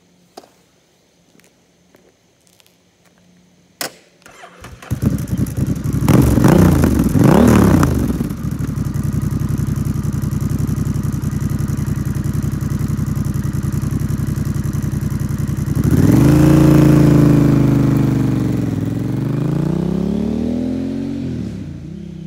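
Honda Rebel CMX1100's parallel-twin engine through a Coffman Thunder aftermarket exhaust. After a click it starts about five seconds in, is revved twice and settles into a steady idle. Then it pulls away with the revs rising and falling twice, and fades as it rides off.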